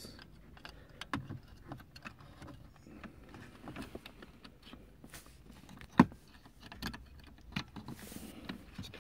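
Light plastic clicks and rustling as the bulb socket and wiring connector of a 2005 Mazda 3's cigarette lighter are handled and pressed together. One sharp click about six seconds in is the loudest.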